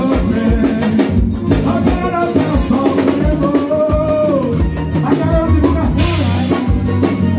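Live forró band playing: accordion melody over a steady beat from a zabumba bass drum and drum kit.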